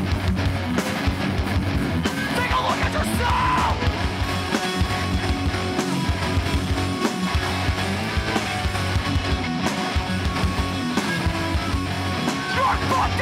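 Hardcore band playing live, with distorted electric guitars, bass and drums.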